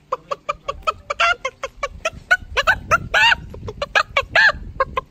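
Domestic hens clucking in a rapid run of short calls, with a few longer, arching calls mixed in.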